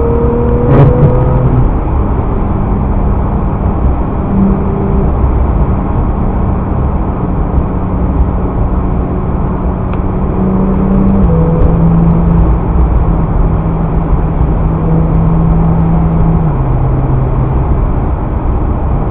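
Car driving noise picked up by a dashcam's built-in microphone: a steady road and engine rumble with a low hum that drops in pitch in steps, about 11 seconds in and again near the end.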